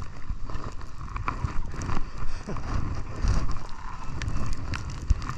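Skis sliding over packed snow, with rumbling wind noise on the body-worn camera's microphone and a few short knocks.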